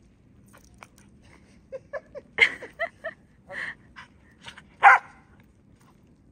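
Welsh corgi puppy barking and yipping, a quick run of short, high calls over about three seconds, with two louder barks among them.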